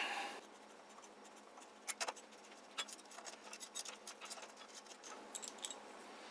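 Small plastic and metal saw parts being handled by hand: scattered light clicks and scrapes, with a couple of sharper clicks about two seconds in.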